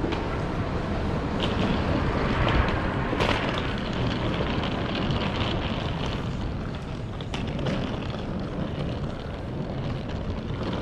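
Jet aircraft noise, a steady rush that swells a couple of seconds in and then eases off.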